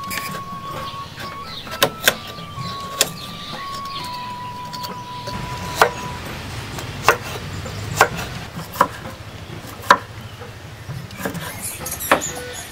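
Large kitchen knife chopping fresh coconut flesh against a wooden cutting board: sharp knocks at irregular intervals, roughly one a second. Soft background music plays under it.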